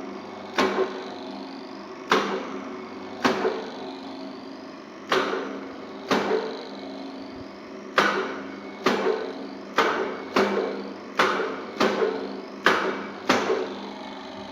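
Thread-tapping drill press running with a steady hum, broken by about a dozen sharp metallic clanks that ring briefly. The clanks come irregularly, a second or so apart, and closer together in the second half.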